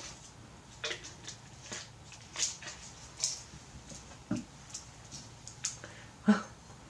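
A few faint, separate clicks and soft taps, about one every second, the loudest one near the end.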